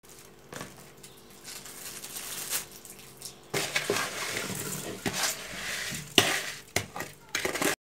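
Sugar-coated cherries scraped with a spoon out of a plastic bowl into a metal cooking pot: a grainy sliding, scraping sound with several sharp knocks and clatters, starting about three and a half seconds in. Before that, quieter rustling.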